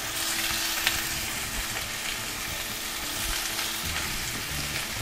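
Stuffed pork chops searing in hot oil in a cast-iron skillet, a steady sizzle, as a third chop is laid into the pan at the start.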